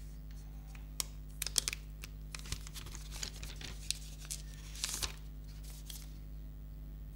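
Protective plastic wrap being peeled off a smartphone: a scatter of short crackles from about a second in until about five seconds in.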